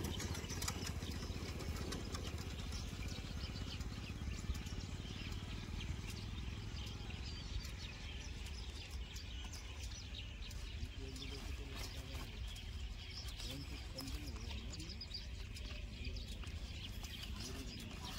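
Woven plastic sack rustling and crinkling in hands as its tied neck is worked loose, over a steady low rumble.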